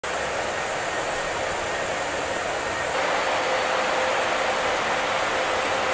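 Steady rushing noise of an aircraft in flight, with a faint steady hum, a little louder from about three seconds in.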